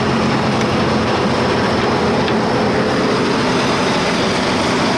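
Heavy diesel engine running steadily at a constant speed, a continuous low drone with no change in pitch.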